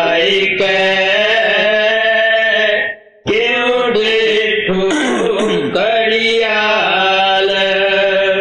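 A man singing a devotional verse unaccompanied, in long melodic phrases with held, wavering notes. He breaks off for a breath about three seconds in and again at the end.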